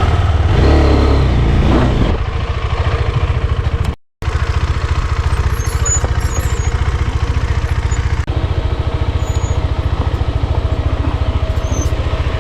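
KTM Adventure motorcycle engine running on the move, a steady rapid thrum of firing pulses, a little louder in the first two seconds. The sound drops out completely for a moment about four seconds in.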